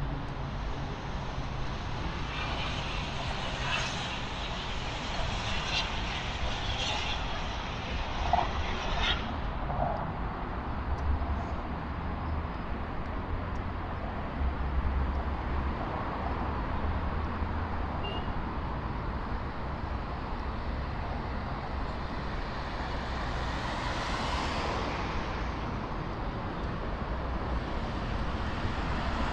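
City street ambience of a busy avenue: steady road-traffic noise with vehicles passing, and one louder pass-by swelling and fading near the end.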